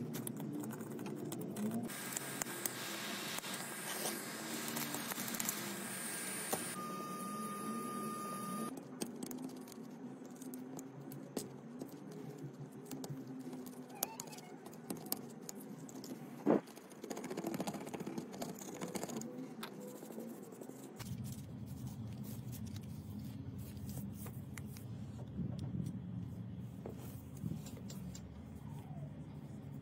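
A metal scraper scraping shattered glass and adhesive off the metal back housing of an iPhone 12 Pro, with many small clicks and ticks over a steady low hum. One sharper knock comes about halfway through.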